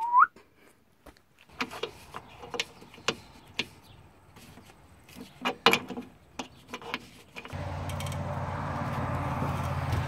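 Scattered metal clicks and clinks of an adjustable wrench working the bolt on a solar panel's aluminium mounting bracket. About three-quarters of the way through, the sound gives way to a steady low rumble with a hiss.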